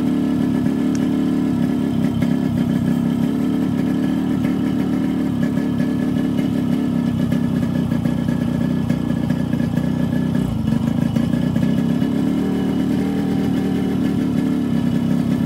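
A Yamaha RX100's single-cylinder two-stroke engine running steadily. It is firing on a stand-in ignition coil from an old-model Splendor motorcycle, which does not give it its full power.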